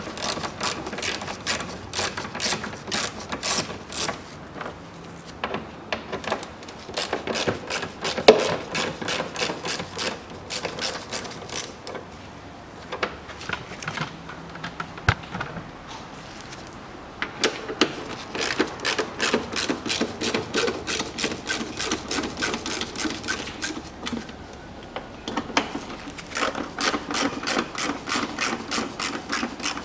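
Hand ratchet with an 8 mm socket clicking in quick runs as bumper fasteners are turned out, in several bursts with short pauses, and a louder knock about eight seconds in.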